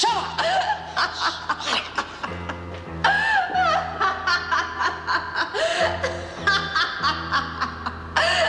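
A woman laughing at length in quick repeated pulses, over background music with held low notes.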